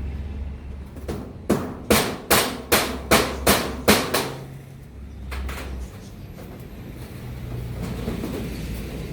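A hammer strikes in a quick run of about nine sharp blows, two to three a second, starting about a second in and stopping a little after four seconds, with one softer knock shortly after. This is typical of nailing during roof repair work. A low rumble runs underneath.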